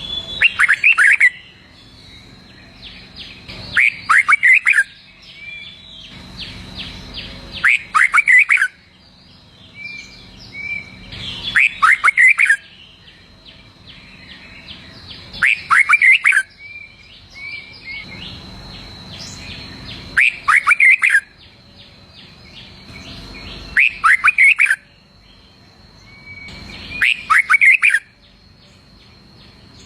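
Red-whiskered bulbul singing: a short phrase of quick chirping notes, repeated eight times at about four-second intervals.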